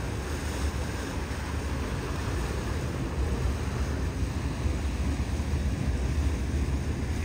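Wind buffeting the microphone over the wash of harbour water: a steady low rumble with a hiss above it and no clear engine tone.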